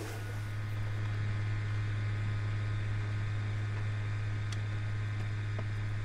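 Steady low electrical hum over a faint hiss, unchanging throughout.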